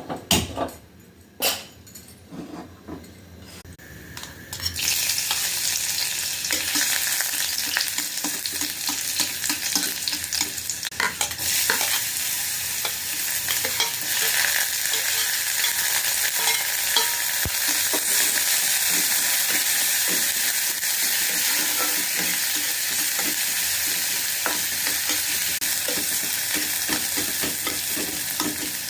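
Food sizzling as it fries in a hot pan, with a spatula clicking and scraping as it is stirred. A few light knocks come first, then the sizzle starts suddenly about five seconds in and stays steady.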